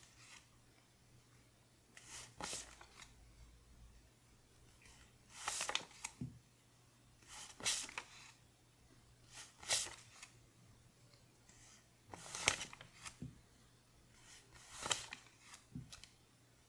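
Paper one-dollar bills being flicked over one at a time from a hand-held stack, a short crisp paper rustle about every two seconds, six times.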